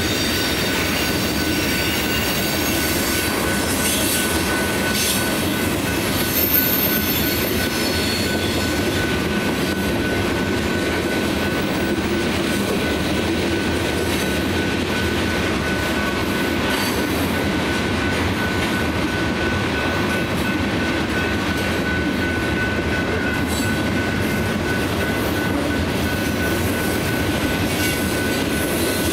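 Freight train's tank cars and covered hoppers rolling past at a steady pace: a continuous rumble of steel wheels on rail with a few sharp clanks, and a thin steady high tone over it.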